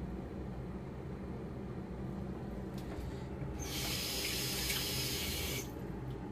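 Water running from a kitchen tap for about two seconds, starting a little past halfway and cutting off sharply, over a low steady hum.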